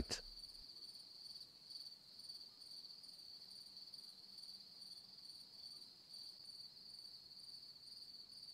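Faint, steady, high-pitched insect chirring, typical of crickets, running on without a break.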